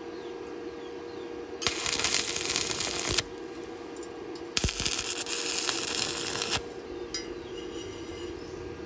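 Stick-welding arc crackling in two short bursts of about one and a half and two seconds, each starting with a sharp strike as the electrode touches the metal.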